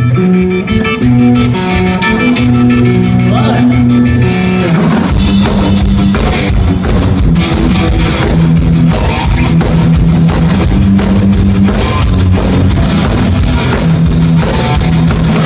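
Rock band playing without vocals: a guitar alone for about the first five seconds, then drums and the rest of the band come in.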